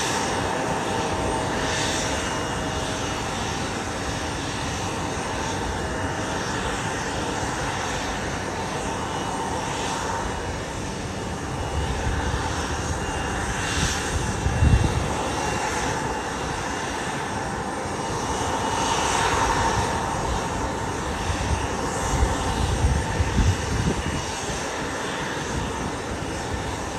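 Embraer E175 jet airliner's engines running at idle during pushback: a steady whine over a rushing hiss, with brief low rumbles about halfway through and again near the end.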